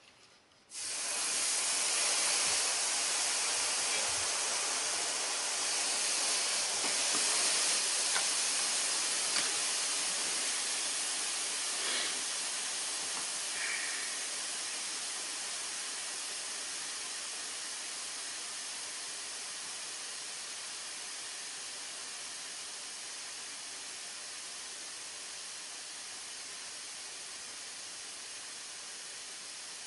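A steady hiss, brightest in the treble, that starts suddenly about a second in and slowly fades, with a few faint clicks.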